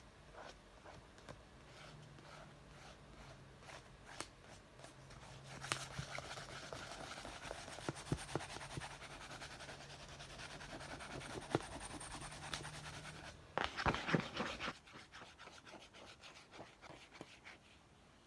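Scratching, rubbing and tapping on a book. Light scattered taps give way to a steady stretch of scratching, then a louder, quick flurry of scratches about fourteen seconds in, followed by sparse soft taps.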